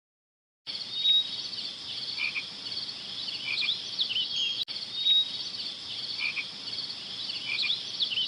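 Frogs calling: repeated high trills and chirps, with a brief break about halfway through.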